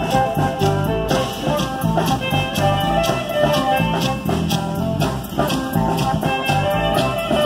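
Live band music with drums, playing a steady beat under pitched instrument lines.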